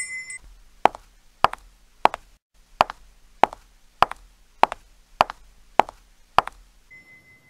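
A run of about ten short, sharp taps, evenly spaced a little under two a second, in an end-screen sound effect, with a faint steady tone starting near the end.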